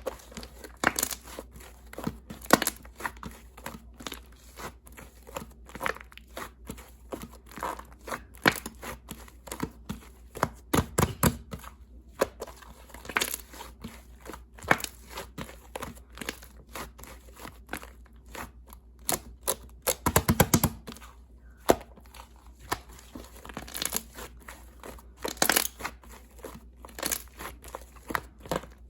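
Slime being squished, stretched and pressed by hand, making irregular sticky popping and crackling clicks, with denser runs of pops about eleven seconds in and again around twenty seconds in.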